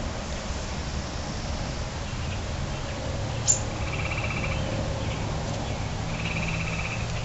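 Barn swallow calls: two short, buzzy trilled calls a couple of seconds apart, with a sharp click about halfway through, over a low steady hum.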